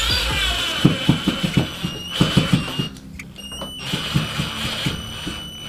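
Power drill driving a lag bolt into a wall stud, straining and knocking in rapid bursts as the bolt binds; the drill is too weak to sink it.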